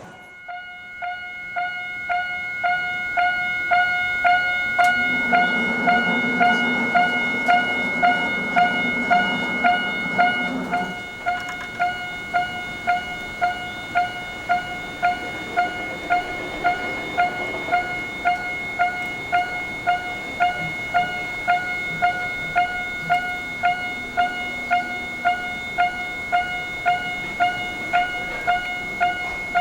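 Japanese level-crossing warning bell ringing its repeated "kan-kan", about two strikes a second. A low steady hum runs under it from about five to eleven seconds in.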